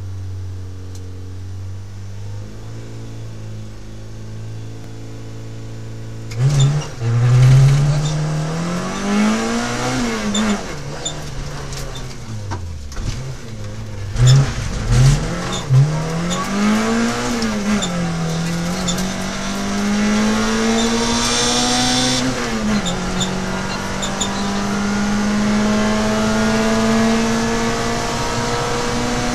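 Peugeot 106 XSi rally car's four-cylinder engine, heard from inside the cabin. It runs low and steady at first. About six seconds in it starts accelerating hard, with revs climbing and dropping through gear changes and a few sharp loud peaks, then holds high revs steadily near the end.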